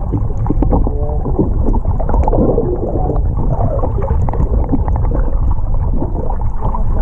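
Muffled underwater rumble and water rushing over a submerged camera's waterproof housing, with faint wavering tones and light clicks through it.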